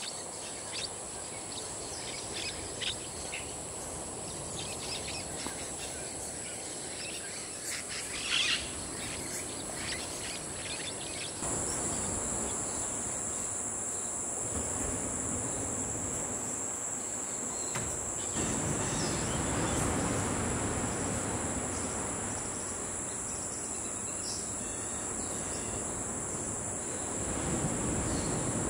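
Tropical rainforest ambience: a steady, high-pitched insect drone, with a few short bird calls in the first ten seconds. The drone shifts slightly in pitch about eleven seconds in.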